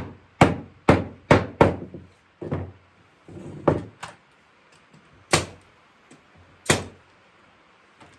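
Hammer blows knocking oak rocking-chair parts together at their joints: a quick run of five strikes about two a second, then lighter knocks and handling, and two more single hard blows near the end.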